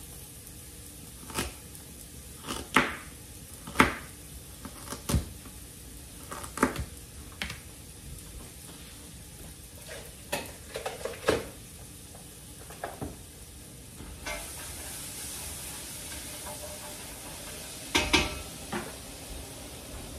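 Knife chopping baby carrots on a plastic cutting board: a series of sharp, irregular knocks. About two-thirds of the way through, a steady hiss of air sets in, the range-hood fan switched on, with a few more kitchen knocks near the end.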